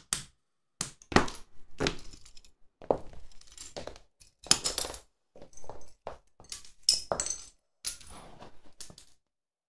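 A small plastic toy Mercedes Transporter van cracking apart under pressure, its broken pieces clicking and clinking on a metal tread plate: a string of sharp, irregularly spaced cracks and clicks that stops about nine seconds in.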